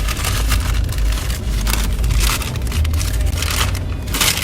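Car in motion: a steady low rumble of engine and road noise, with irregular rushing noise over it.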